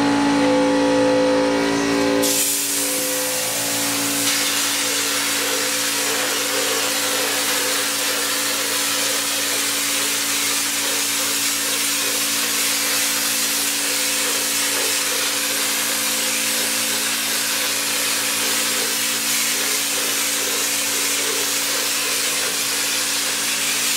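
Drywall texture hopper gun spraying texture mud onto a ceiling: a steady rush of air and spray that starts about two seconds in and runs on evenly. Under it is the steady hum of the air compressor that feeds the gun.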